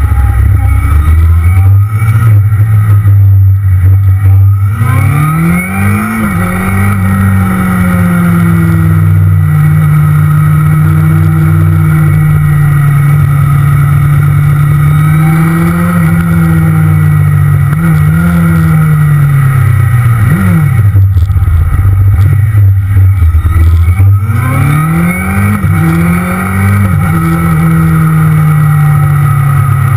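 Motorcycle engine heard from an onboard camera, accelerating with its pitch climbing and dropping at gear changes, then holding a steady cruising note. About two-thirds through it slows, then pulls away again, climbing through the gears once more.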